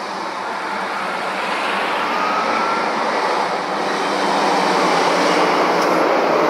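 A heavy lorry approaching on the road, its tyre and engine noise a steady rush that grows gradually louder.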